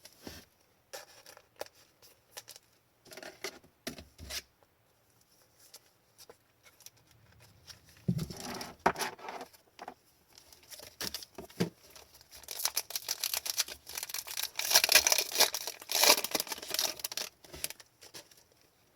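Foil wrapper of an Upper Deck hockey card pack being torn open and crinkled, the loudest, longest crackling about two-thirds of the way through. Before it come scattered light clicks and rustles of cards being handled.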